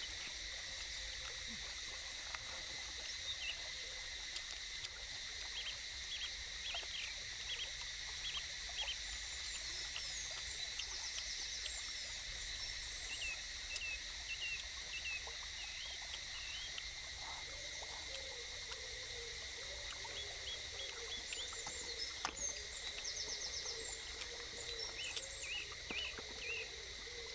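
Forest ambience: a steady high insect drone with many short, repeated bird chirps, and a lower wavering call joining in about two-thirds of the way through.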